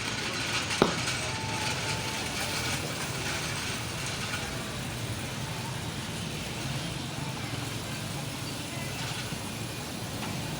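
Honda CD 70's small single-cylinder four-stroke engine idling steadily through a silencer that makes a bad sound. A single sharp click about a second in.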